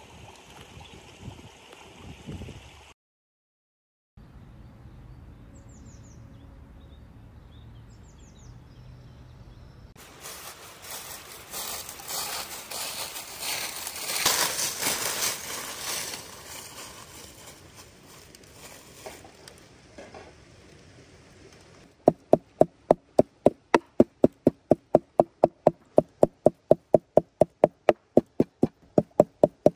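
Footsteps crunching through thick dry fallen leaves, loudest midway. Then, about two-thirds of the way through, a cleaver chopping raw chicken on a wooden board in quick, steady strokes, about four a second.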